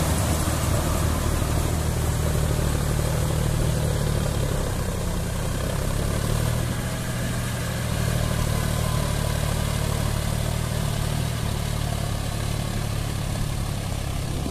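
John Deere 5050D tractor's three-cylinder diesel engine running steadily under load as it pulls a rotavator through a flooded paddy field, growing a little fainter about halfway through as the tractor moves off.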